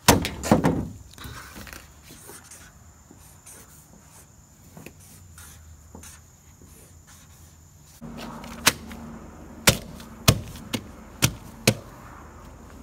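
Paper rustling as a sheet is laid on a truck hood, then faint marker strokes on it. About eight seconds in the background changes, with a low steady hum, and there are several sharp taps as the sign is pressed against the pickup's windshield.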